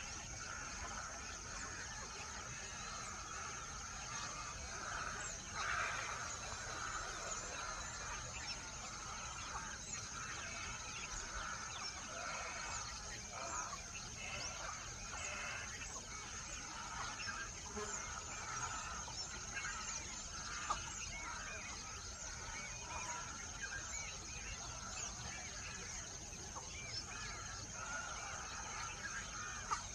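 A flock of birds calling all at once, a steady din of many overlapping calls with small high chirps above them.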